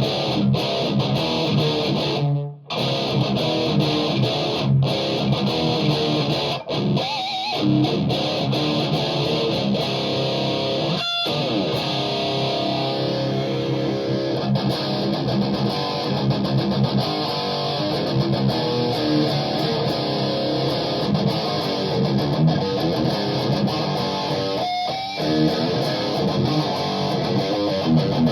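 Electric guitar played through a Mesa Boogie amplifier, heavy riffs with a driven tone, broken by short stops about two and a half seconds and eleven seconds in.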